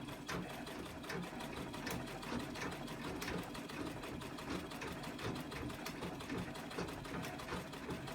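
A 1980s Janome treadle sewing machine stitching at a steady pace, with a quick, even ticking clatter from its needle and feed mechanism. The machine has been freshly serviced and oiled and runs smoothly.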